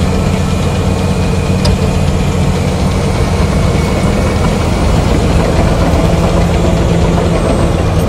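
Large crawler bulldozer's diesel engine running with a steady low drone as the dozer works over broken rock.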